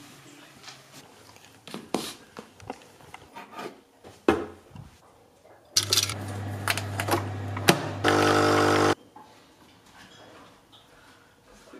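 Coffee capsules and glass jars clinking and knocking as they are handled. Then a capsule coffee machine runs with a steady hum, its pump buzzing loudly for about a second before it stops suddenly.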